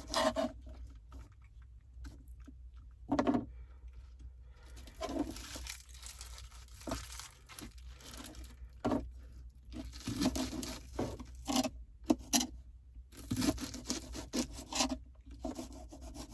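A knife slicing through fresh scallions: irregular short cutting strokes, some coming in quick runs.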